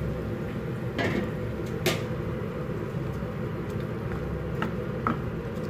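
A wooden spatula stirring chicken wings in sauce in a frying pan, with a few sharp clicks and scrapes against the pan over a steady low hum.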